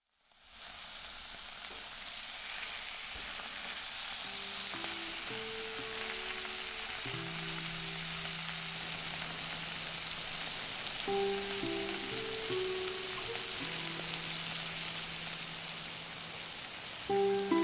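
Meat sizzling steadily in a frying pan on a portable gas camping stove, fading in from silence at the start. Quiet music with held low notes comes in about four seconds in.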